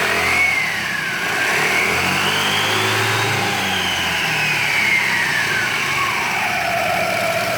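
Yamaha NMAX scooter's single-cylinder engine revved with the CVT cover off. The whine climbs briefly, dips, rises to a high peak about three seconds in, then falls back toward idle as the exposed CVT spins up and back down. The CVT is working properly, and the earlier strange engine noise is gone now that the camshaft bearing has been replaced.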